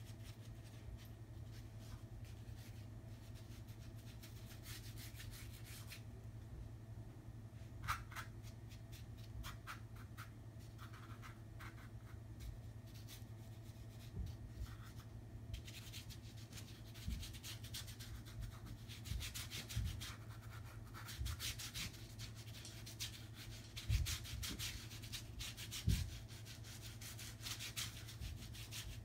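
Paintbrush scrubbing acrylic paint across the canvas: scratchy rubbing strokes in short bursts, busiest in the second half, over a steady low hum, with a couple of soft thumps near the end.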